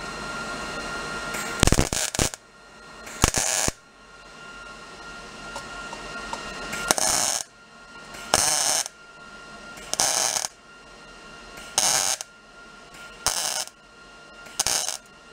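MIG welder laying short tack welds on a chrome headlight bucket, turned up a little hotter: about eight short bursts of arc crackle, each under a second long, spaced one to two seconds apart.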